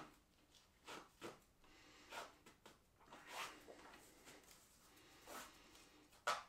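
Faint rustling and a few brief swishes of laces being pulled tight through the eyelets of Nike Mercurial Vapor 13 Elite football boots, with a sharp tap near the end.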